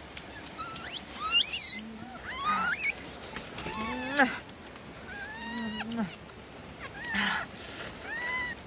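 Baby macaque whimpering, a series of high, arched coos about one every second and a half, each with a short lower note.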